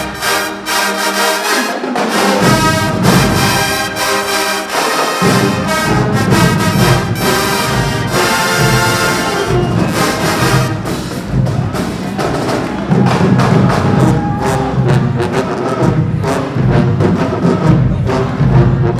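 Marching band playing loudly: brass section holding full chords over pounding drums, the low brass and drums dropping out briefly in the first few seconds before the full band comes back in.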